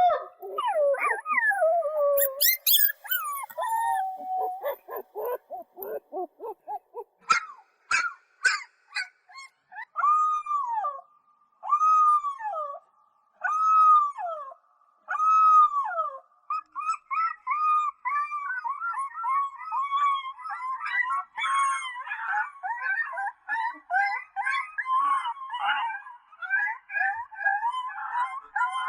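Puppies howling and whimpering in high, thin voices. In the middle come four separate rising-and-falling howls about two seconds apart; after that the calls crowd into a steady chorus of short, overlapping yips and whines.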